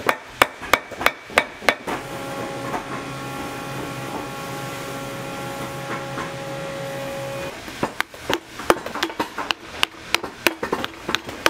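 Sharp hammer taps on tacks and leather, about three a second, in two runs. Between the runs is a steady hum with a held tone, lasting about five seconds.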